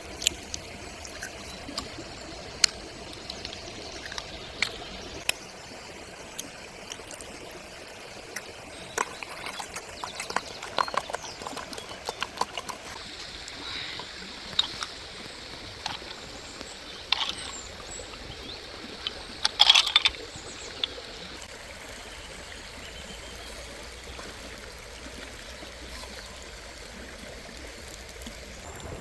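Outdoor cooking sounds: a steady hiss with scattered sharp clicks and clinks, with a short, louder cluster of clicks about twenty seconds in.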